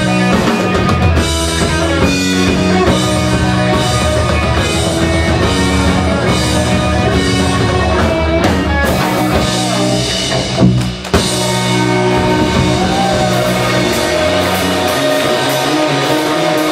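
Rock band playing live: distorted electric guitars, electric bass and a drum kit, with a brief break marked by two sharp hits about eleven seconds in.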